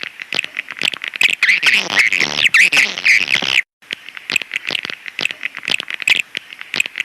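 Swiftlet calls of the kind played as a lure in swiftlet nesting houses: a dense stream of rapid chirps and clicking twitters, cutting out for a moment a little past halfway and resuming.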